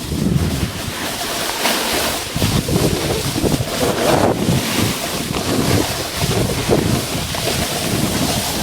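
Wind buffeting the microphone over rushing creek water, a steady noise with uneven gusty rumbles.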